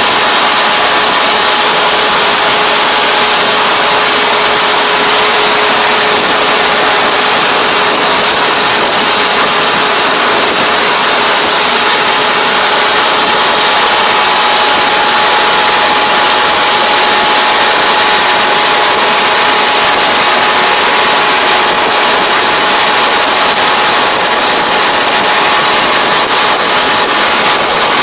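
Kubota ER470 combine harvester running steadily: a loud, even mechanical drone with a steady whine over it.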